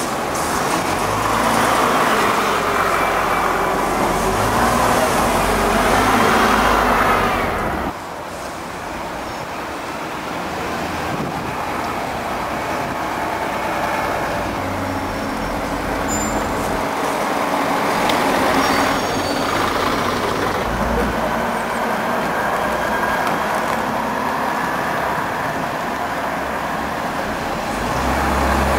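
MCW Metrobus double-decker buses, their diesel engines running as they pull away and pass close by, loudest about six seconds in. After a sudden cut, lower steady town-centre traffic noise, growing louder near the end as another bus approaches and turns past.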